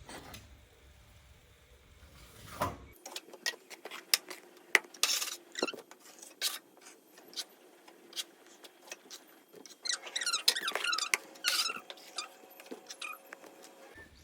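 Plastering trowel working wet bonding plaster onto a wall: a run of irregular scrapes and clicks, with squeaky, wavering strokes about a third of the way in and again in a cluster near the end.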